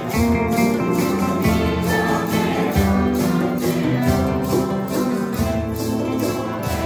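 Congregation singing a Santo Daime hymn together, accompanied by strummed acoustic guitars and a mandolin-like plucked instrument, with a shaken rattle keeping a steady beat.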